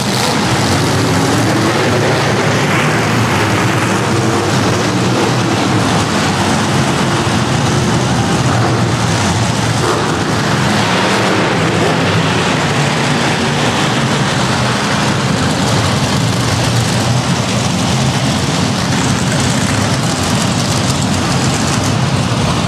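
Monster trucks' supercharged V8 engines running loud and unbroken, echoing around an indoor arena.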